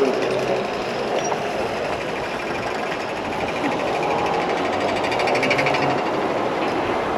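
Motorhome cab noise on the move: steady engine and road noise with a fast, even mechanical rattle.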